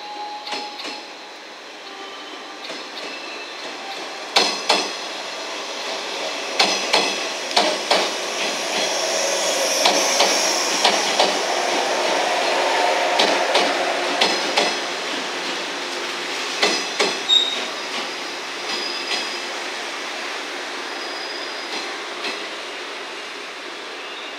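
JR West 115-series four-car electric train passing, its wheels knocking sharply over rail joints, often in quick pairs. The running noise swells and fades, and the knocks stop a few seconds before the end.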